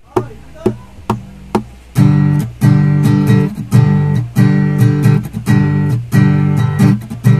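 Acoustic guitar strummed in chords: a few light single strokes at first, then from about two seconds in a loud, steady strumming rhythm.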